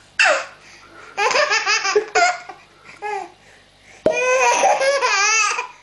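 A baby laughing hard in several bursts: a squeal that falls in pitch at the start, a run of quick laughs, then a long squealing laugh that rises and falls in the last second and a half.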